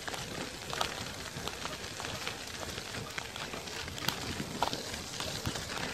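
Wheels rolling fast over a gritty, leaf-strewn path: a steady crackling rumble with scattered clicks and knocks.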